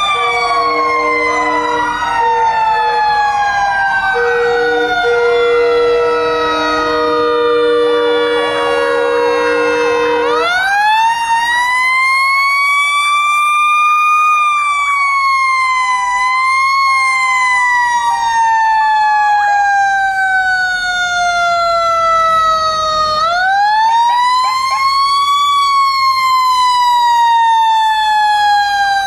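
Fire truck sirens at a parade: one siren winds up and then slowly falls away, three times, about ten seconds apart. In the first ten seconds other sirens wail over it, with steady low horn blasts.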